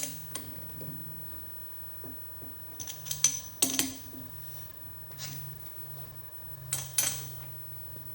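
Sharp metallic clinks and knocks of a chuck key being fitted and turned to tighten a chuck, in three clusters a few seconds apart, over a faint steady low hum.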